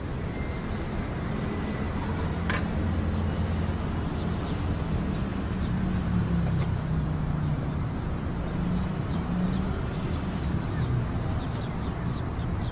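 Low, steady rumble of street traffic, with a faint click about two and a half seconds in.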